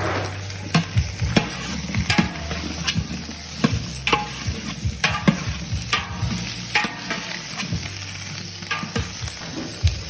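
Food sizzling in a hot pan while it is stirred, the utensil scraping and knocking against the pan at irregular intervals.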